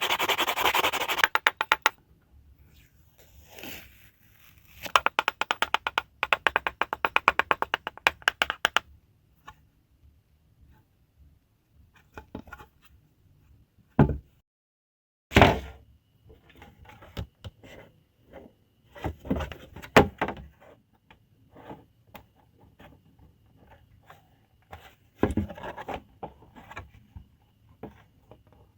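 Sanding or rasping on hard plastic, first a brief dense rub and then a fast run of short strokes, followed by scattered knocks, thunks and light scrapes of the part being handled and set down.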